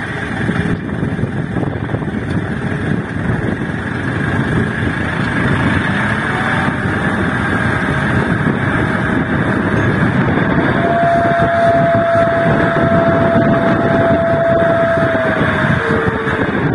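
Small dump truck's diesel engine running under load while the loaded sand bed is tipped up to dump. It gets louder about six seconds in, and a steady high whine runs alongside it for the last few seconds.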